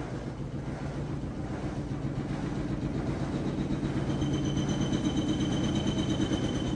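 Samsung front-load washer's drum spinning, a steady low drone that grows louder, with a high whine joining about four seconds in. The drum's rear bearing is on its way out.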